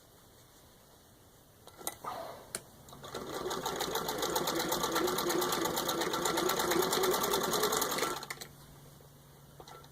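1918 Singer 66-1 sewing machine, turned by its hand crank, stitching through six layers of denim. A few clicks about two seconds in, then a rapid, steady run of needle strokes for about five seconds that stops abruptly.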